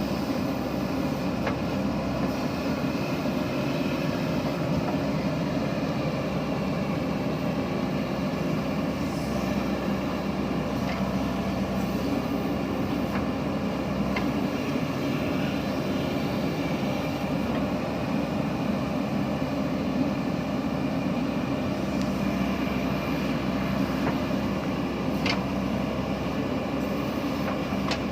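JCB backhoe loader's diesel engine running steadily, with a few faint clicks over it.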